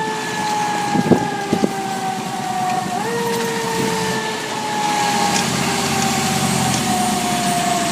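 Fire engine siren, a steady tone that slowly falls in pitch, jumps back up about three seconds in and falls again, over the truck's running engine. A couple of short clicks come about a second in.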